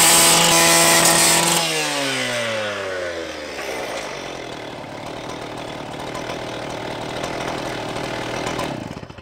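Two-stroke petrol disc cut-off saw at full revs, its abrasive disc cutting through an aluminium ladder rail with a bright metallic hiss. About a second and a half in the cut ends and the throttle is released, and the engine winds down in pitch to a rough idle. The running stops abruptly near the end.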